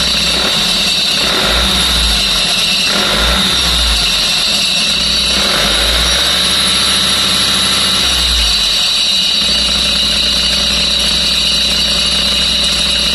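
Bus engine working as the bus pulls forward for about nine seconds, then settling back to a steady idle, with a steady high whine throughout. The bus is being checked for an abnormal noise that loosening a screw in the engine room has not changed.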